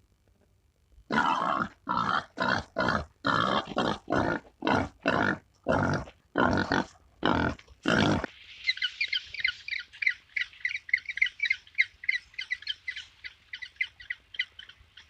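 About a dozen short, harsh animal calls in quick succession, about half a second apart. Then a fast run of high bird chirps and chatter, several a second.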